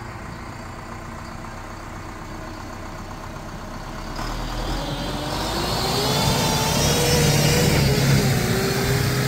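Tractor engine running at low revs, then revving up about four seconds in and staying louder, its pitch rising and then holding.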